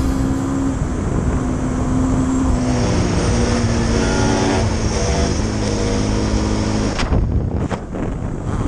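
Dirt bike engine running under way, holding steady revs and then stepping to a new pitch every second or so as the rider shifts and rolls the throttle. The sound changes and drops off near the end.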